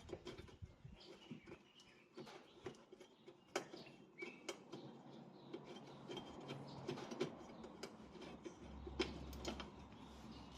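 Faint, scattered clicks and taps at an irregular pace, from hand work on the car's rear suspension during disassembly.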